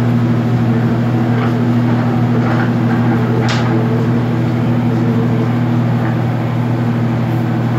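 Electric spiral dough mixer running steadily, its motor humming as the hook kneads pizza dough in the turning stainless bowl, with a short click about three and a half seconds in.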